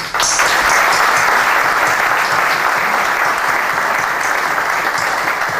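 Loud applause from an audience in a hall, starting abruptly and tapering off near the end.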